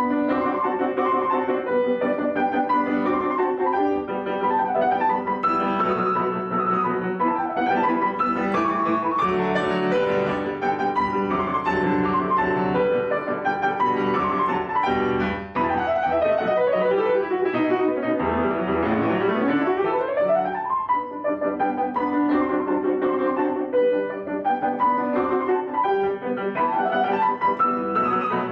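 Piano music with fast runs of notes, including a long sweep down and back up about two-thirds of the way through.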